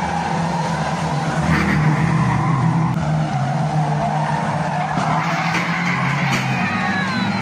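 Several saloon stock car engines running hard as the cars race round a bend, with tyre noise from cars sliding. Near the end one engine note falls.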